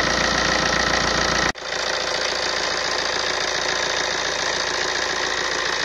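Tata Safari 2.2 DiCOR four-cylinder diesel engine idling steadily, with an even rapid clatter. It is running while the cooling system is topped up so that trapped air can work out. About a second and a half in there is a sudden short break, after which it runs on slightly quieter.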